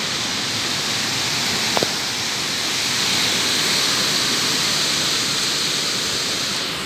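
Storm wind rushing through the leafy crowns of tall trees, a steady rustling roar of leaves that swells around the middle.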